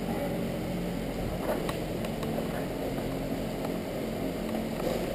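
Steady low mechanical hum of room machinery, with a couple of faint ticks about a second and a half in.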